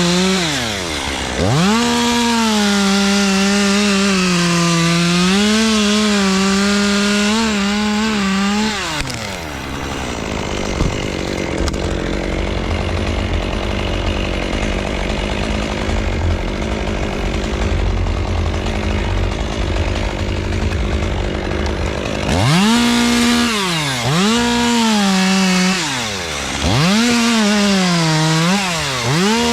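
Chainsaw running at high revs, its whine dipping sharply in pitch several times as the throttle is let off and squeezed again. For roughly the middle half the whine gives way to a dense, noisy rumble, and the revving whine returns near the end.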